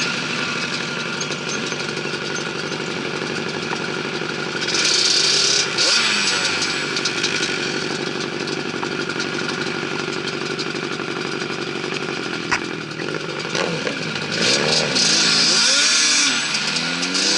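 Sport quad engines running while riding in traffic, a steady drone with bursts of louder rushing noise. Near the end the engine pitch rises and falls as the throttle is worked.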